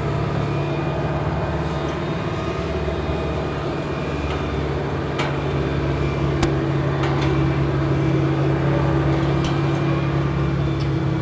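Truck crane's engine running steadily under load while hoisting, a low drone with a higher whine that grows stronger about halfway through.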